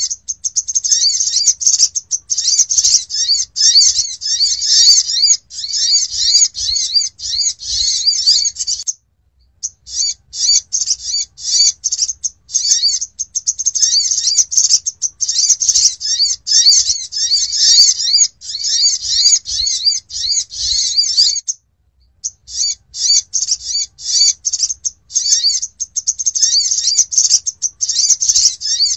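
Olive-backed sunbird (sogok ontong) song played as a trapping lure call: rapid, high-pitched twittering chirps in dense runs, broken by two short pauses.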